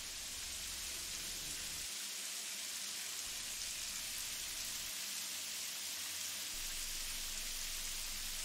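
A steady, even hiss like falling rain or running water.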